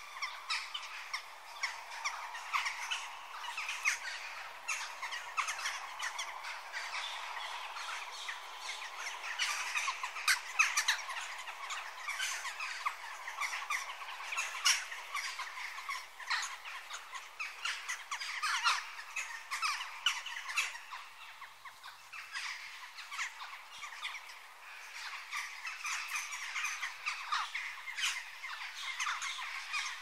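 Jackdaws calling: a busy, unbroken stream of short, sharp calls following one another quickly and often overlapping.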